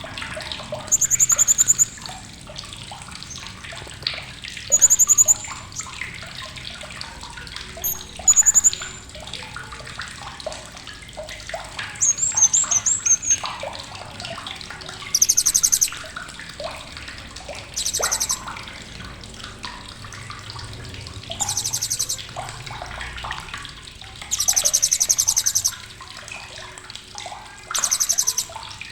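Blue-crowned hanging parrot (srindit) giving sharp, high, rapid trilled chirps, each about a second long, repeated every few seconds.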